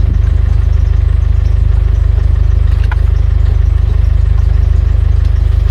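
Car engine running steadily, a deep even hum with a fast regular pulse, heard from inside the car.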